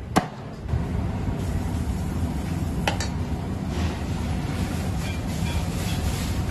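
A steady low rumble of kitchen background noise, with one sharp knock just after the start and a lighter click about three seconds in.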